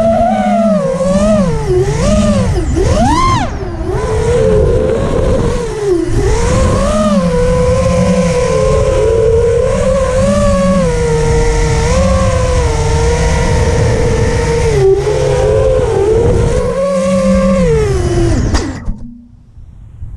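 FPV racing quadcopter's brushless motors and propellers whining, heard from the onboard camera, the pitch rising and falling with throttle over a low rushing noise. Near the end the motors drop in pitch and cut off suddenly.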